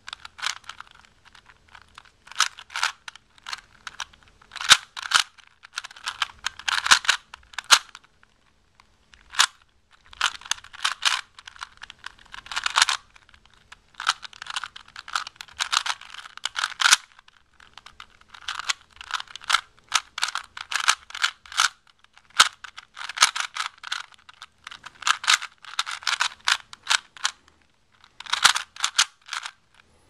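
3x3 Rubik's Cube being turned fast by hand: its plastic layers click and rattle in quick bursts, broken by brief pauses between sequences of turns.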